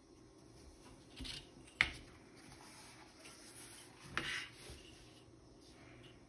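A steel ruler and pencil handled on a drawing board: a soft scrape a little after a second, a sharp tap near two seconds, then a short slide and tap a little after four seconds as the ruler is laid back down across the board.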